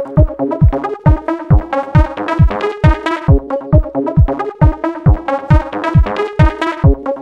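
Electronic dance music: a steady kick drum a little over twice a second under sustained synthesizer chords.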